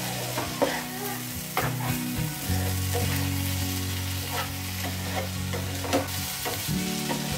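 Wooden spatula stirring and scraping chopped ridge gourd and scrambled egg around a sizzling nonstick frying pan over high heat, with a few sharp knocks of the spatula against the pan.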